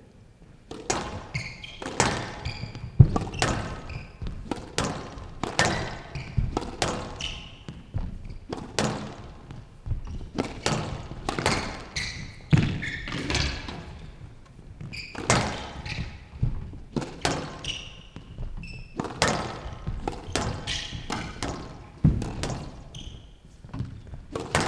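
Squash rally: a rubber squash ball is struck by rackets and smacks off the front wall and the glass court walls in an irregular run of sharp thuds, about one or two a second. Short squeaks of court shoes on the wooden floor come in between the hits.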